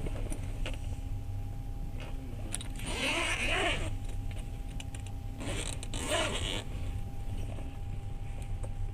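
Train rumble heard from inside a passenger carriage while a freight train passes alongside: a steady low rumble with scattered clicks, and two louder surges of hissing and creaking about three and six seconds in.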